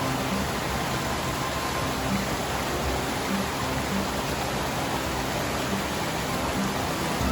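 Mountain stream water rushing with a steady, even noise.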